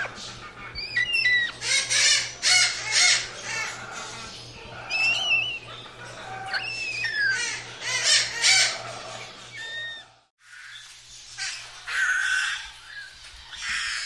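Parrots squawking and screeching: repeated harsh calls mixed with short whistled notes that bend up and down in pitch. The calling breaks off briefly about ten seconds in, then starts again.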